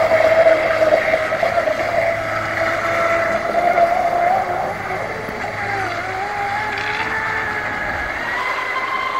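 Electric motor of a 3D-printed RC racing catamaran running at speed: a steady high whine whose pitch wavers and then climbs near the end.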